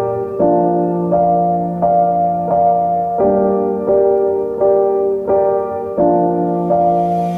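Slow, gentle piano music: single notes and sustained chords struck at a steady, unhurried pace, each ringing on.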